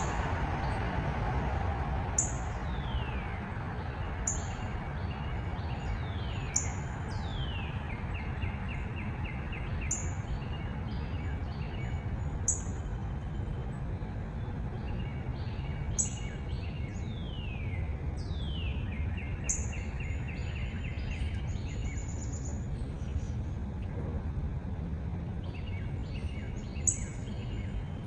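A songbird singing a repeated phrase every couple of seconds: a sharp high note, a falling whistle, then a quick run of short notes. Under it is a steady low outdoor rumble.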